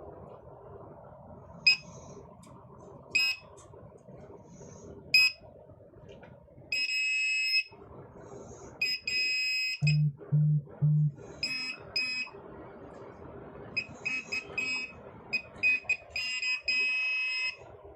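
Handheld metal detector beeping its high-pitched audio alert in irregular short and longer beeps as it senses metal, with three short low buzzes about ten seconds in.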